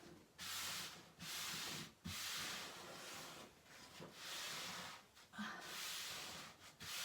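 Five or six rubbing strokes, each about a second long with short gaps between, as a sheet of glass fiber wall covering is smoothed onto the wall.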